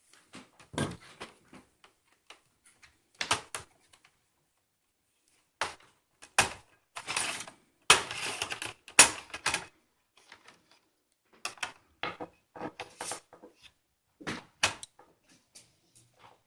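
Parts of a plastic Asus computer being handled and pried apart during disassembly: irregular clicks, snaps and short clatters of plastic, busiest about halfway through.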